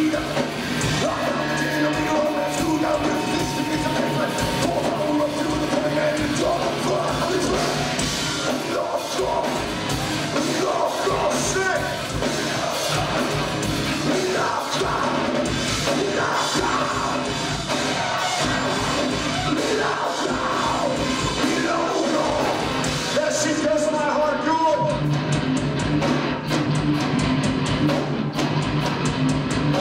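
Nu-metal band playing live and loud: distorted guitars, bass and drums, with a singer yelling over them.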